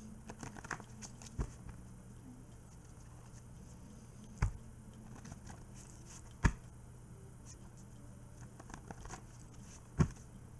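Hands rustling and crinkling a rolled paper card while unrolling it, with a few sharp knocks, the loudest about four and a half, six and a half and ten seconds in. A low steady hum sits underneath.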